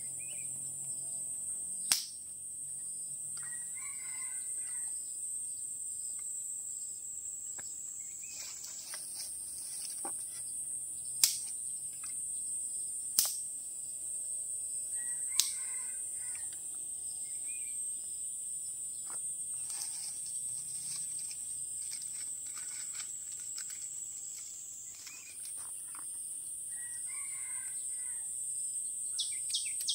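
A rooster crowing faintly three times, about twelve seconds apart, over a steady high-pitched insect drone. A few sharp clicks or knocks sound through it.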